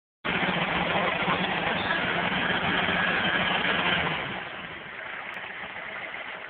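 Small red crawler tractor's engine running steadily at speed, then dropping to a quieter idle about four seconds in.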